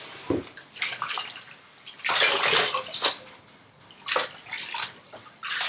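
Water splashing and running in several short, irregular bursts as bunches of fresh herbs are rinsed and swished by hand in cold water.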